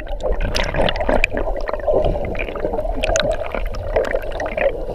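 Water gurgling and bubbles popping around a camera held underwater by a diving swimmer, heard muffled through the water, with a dense crackle of small bubble pops throughout.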